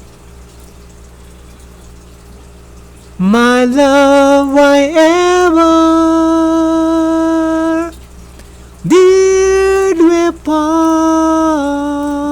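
Unaccompanied solo voice singing long held notes. After about three seconds of room noise, the voice comes in with a rising glide, holds notes that step up and down in pitch, breaks off briefly, and comes back for another long note.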